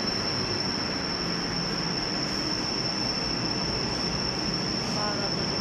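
Steady rushing noise with a continuous high-pitched whine, machine-like.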